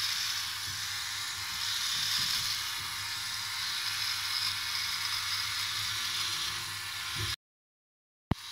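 Philips OneBlade electric trimmer with a 5 mm comb attachment running steadily, its buzz mixed with the rasp of the blade cutting beard stubble as it is drawn up the neck and jaw. About seven seconds in the sound cuts off suddenly, and after a second of silence it returns with a click.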